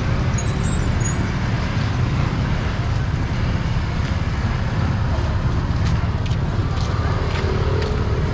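Steady street traffic noise with a continuous low engine rumble from passing motor vehicles.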